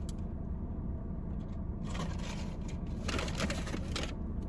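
Paper napkins and a fast-food bag rustling in two bursts, a short one about two seconds in and a longer one a second later, over a steady low hum.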